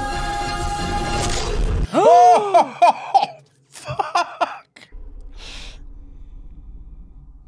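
Film battle-scene soundtrack: choral chanting music cuts off sharply about two seconds in, and a loud yell sweeping up and down in pitch follows. A few shorter cries and sharp hits come after it, then a faint low hum.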